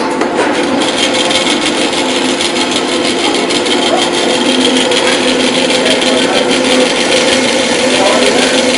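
Bandsaw running with a steady hum while its blade cuts through a wooden workpiece, a continuous dense rasping noise.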